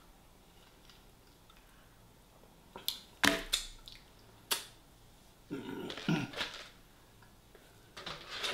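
Close-up eating sounds of fried chicken: a quiet start, then a few sharp clicks and smacks about three seconds in, and wetter chewing sounds in the second half.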